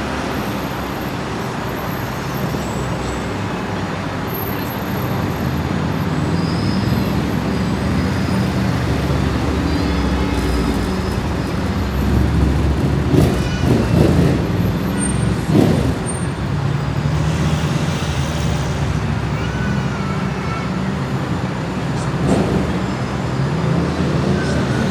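Heavy rush-hour city traffic: a steady wash of engine and tyre noise from cars, buses and trucks. A few sharp, louder sounds come between about thirteen and sixteen seconds in.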